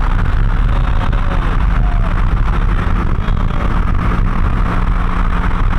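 A car engine running at steady low revs under steady road and wind noise, as from a car rolling along slowly.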